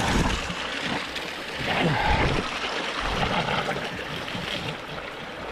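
Hot spring water running steadily, with scattered low bumps underneath.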